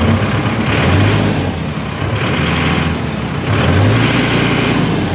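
Mahindra Arjun 605 DI tractor's four-cylinder common-rail (CRDI) diesel engine idling just after being started, swelling slightly louder about a second in and again near four seconds.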